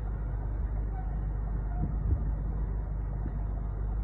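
Steady low rumble inside a car's cabin, the sound of the vehicle running while parked, with one dull thump about two seconds in.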